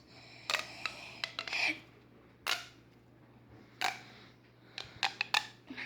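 Plastic pop tube fidget toy being pulled and pushed, its ribbed sections snapping with a run of sharp clicking pops spread over several seconds.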